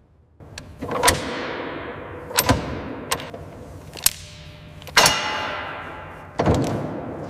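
A series of five sharp, heavy impacts about a second or so apart, each ringing out with a long metallic, echoing tail; the fourth is the loudest and rings longest.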